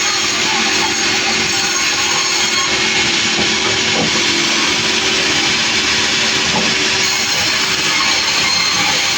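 Sawmill running at a steady, constant level: a dense hiss of machinery and sawing over a low engine hum.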